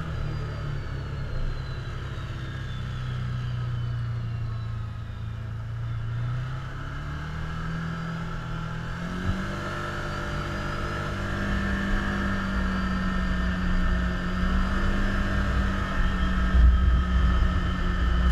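Can-Am Commander side-by-side's engine running as it drives along, heard from the driver's seat. Its pitch climbs from about six to nine seconds in as it speeds up, then holds steady and a little louder.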